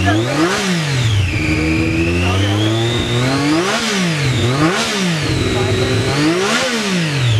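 Triumph Daytona 675R's three-cylinder engine through its stock exhaust, revved in four quick throttle blips and one longer, slowly climbing rev, falling back to idle between them.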